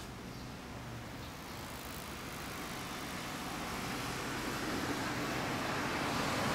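Road traffic: a passing vehicle's noise that grows steadily louder.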